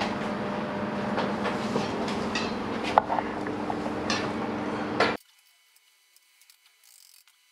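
A few sharp metallic clinks and knocks as a spoked front wheel is handled and set between the fork legs of a Harley-Davidson Shovelhead, over a steady workshop hum. The sound cuts off abruptly about five seconds in.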